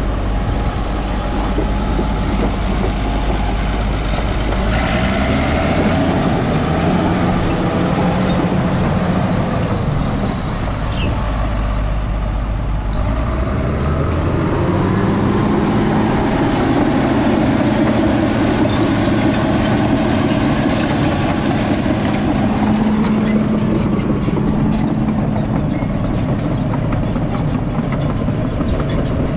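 Cat D6N bulldozer running and working, its diesel engine under load with the steel tracks clattering; the engine note shifts pitch about five seconds in and again around the middle.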